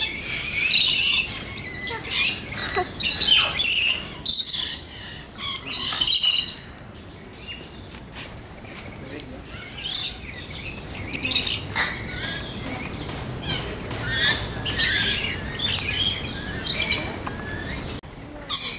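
Parrots calling in many short, high bursts, over a steady high-pitched insect drone that stops near the end.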